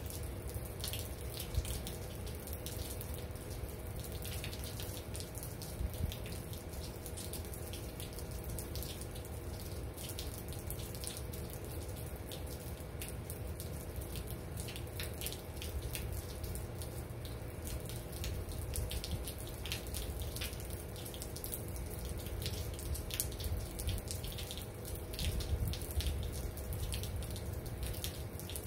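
Steady rain falling, with many sharp drops and drips close by over a low rumble and a faint steady hum.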